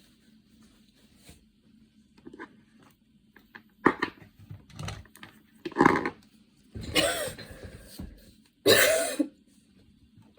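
A woman in a coughing fit: after a few quiet seconds, a string of about five coughs, the last two drawn out.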